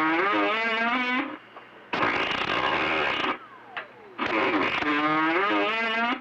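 CB radio receiving three garbled, distorted voice transmissions over skip, each one keyed on and cut off abruptly, with radio hiss in the gaps. A falling whistle sounds in the gap between the second and third transmissions.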